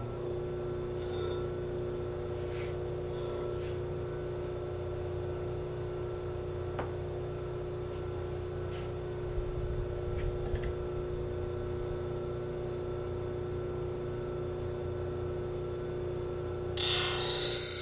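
Bench grinder fitted with CBN sharpening wheels running steadily at speed, a constant hum. Near the end, a knife blade is put to the wheel and a loud, high grinding hiss starts abruptly.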